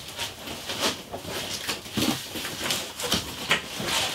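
Large corrugated cardboard box and its inner cardboard packing being pulled open by hand: repeated scraping, rubbing and rustling of cardboard against cardboard, with some squeaky strokes.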